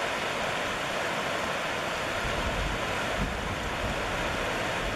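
Steady rushing hiss with no speech in it, even throughout and cutting off sharply just as the weather radio voice comes in.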